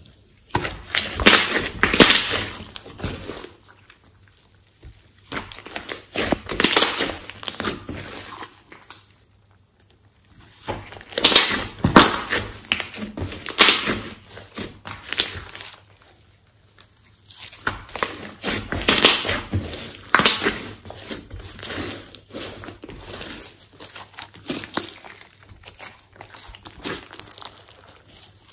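Glossy slime being kneaded, squeezed and stretched by hand, crackling and squishing in bouts of a few seconds with short pauses between.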